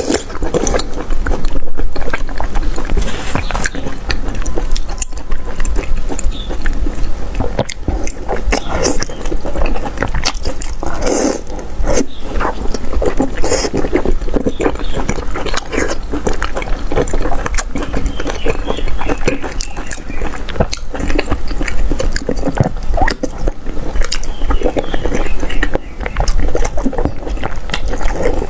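Close-miked eating: chewing and slurping sausages lifted dripping from a spicy broth, with many irregular sharp mouth clicks and smacks.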